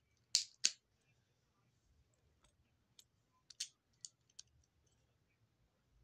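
Small hard plastic clicks of Lego pieces being handled and pressed together: two sharp clicks about a third of a second apart near the start, then a few lighter clicks and ticks a little past the middle.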